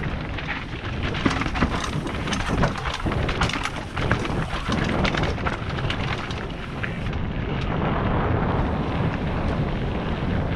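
Mountain bike descending a rocky dirt trail: tyres crunching over gravel and loose stones, the bike rattling, with frequent sharp knocks, over a continuous low rumble of wind on the camera's microphone.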